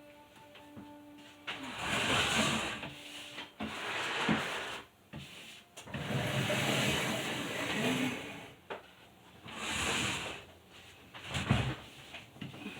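Paint roller rolled over a wall in repeated strokes: four or so rasping hisses, each one to two and a half seconds long, with a few clicks and knocks between them.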